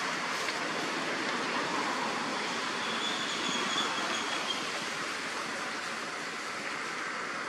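Steady rushing noise with no clear rhythm. A faint, thin high whistle is held for about a second and a half, starting about three seconds in.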